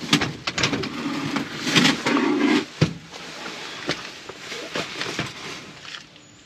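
Clattering and knocking of a four-wheeled fishing trolley's metal frame and wheels as it is lifted out of the back of a van, with a louder rattle ending in a sharp knock about three seconds in, then quieter knocks as it is set down.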